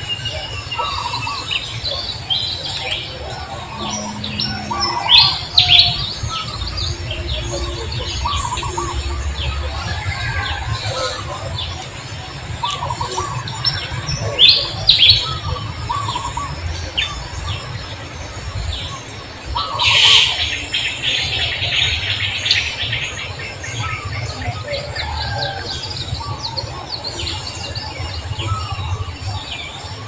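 Birds chirping and calling, many short chirps throughout, with a few sharp louder calls about five and fifteen seconds in and a louder chattering stretch about twenty seconds in.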